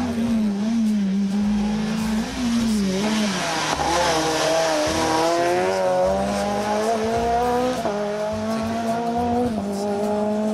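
A rally car's engine is driven hard, at first wavering in pitch through a bend, then rising steadily under acceleration. Its note drops sharply twice in the second half as it shifts up a gear.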